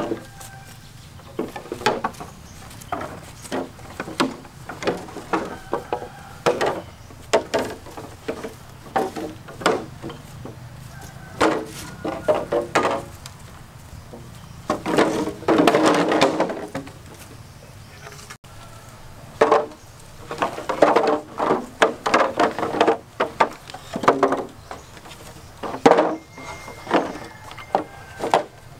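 Green bamboo poles knocking and clattering against each other as they are dropped and pushed into a row on the ground: scattered sharp wooden knocks, with a longer rattling clatter about halfway through and more bunched knocks later on.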